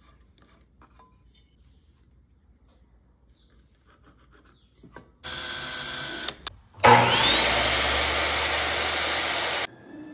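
Cordless drill boring a hole through a wooden block: a short run about five seconds in, then, after a brief pause, a longer and louder run whose whine rises as the motor spins up and then holds steady until it stops sharply near the end.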